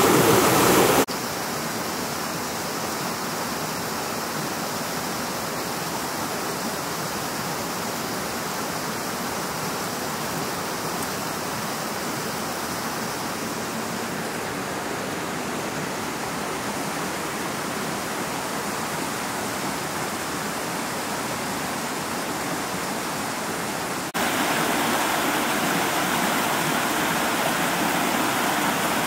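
Rushing mountain stream pouring over rocks and small cascades, a steady wash of water. It drops in loudness about a second in and comes back louder near the end.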